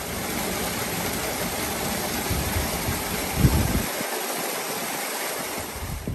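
Rushing water pouring and gushing from a reservoir outlet, a steady even hiss, with one brief low bump about three and a half seconds in.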